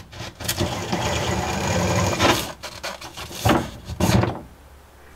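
Power drill running for about two seconds with its bit in a freshly drilled hole through the bus's wooden floor, then two short louder bursts.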